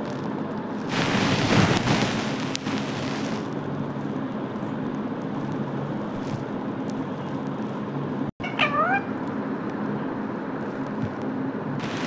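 Rose-ringed parakeet giving a few short sliding squawks about two-thirds of the way through, over a steady hum of several low tones. About a second in, a loud rush of hiss lasts about two seconds.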